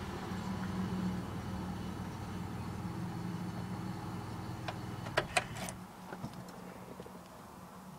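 Car engine running steadily, then cutting off about six seconds in, with a few sharp clicks just before it stops.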